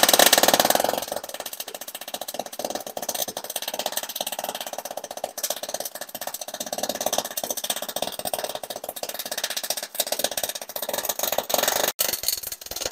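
Electric arc welding on steel: the arc's steady, dense crackle and sizzle as a bead is run. It is loudest in the first second, and the arc breaks off briefly near the end before striking again.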